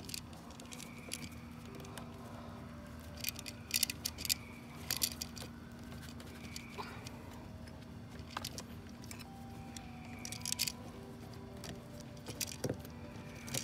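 Intermittent small metallic clicks and rattles of hand work on electrical wiring as wire ends are twisted and tightened together, in several short clusters over a steady low hum.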